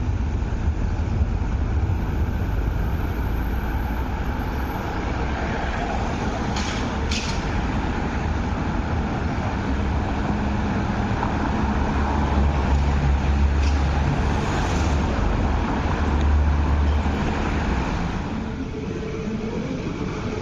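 Steady busy road traffic, with car, bus and truck engines and tyres. A deeper rumble swells about twelve to seventeen seconds in, and there are a couple of sharp clicks about seven seconds in.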